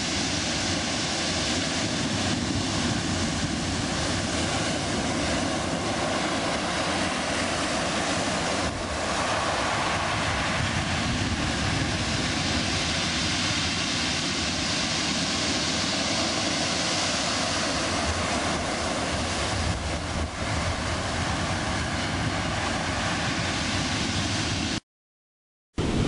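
Storm waves breaking and washing up over a shingle beach: a steady rushing noise that holds at one level and cuts out abruptly about a second before the end.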